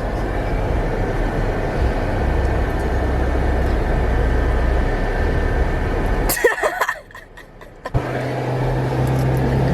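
Car running and driving, heard from inside the cabin: a steady engine and road rumble. About six seconds in comes a brief louder sound with a sliding pitch, then the sound drops away for about a second before the rumble returns with a steady low hum.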